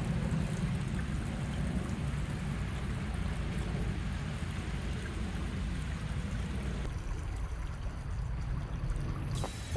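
Small stone-lined stream flowing over rocks: a steady rush of running water.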